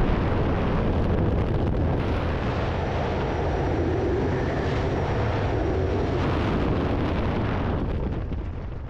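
Freefall wind rushing over a skydiver's helmet-camera microphone: a loud, steady roar that fades out near the end.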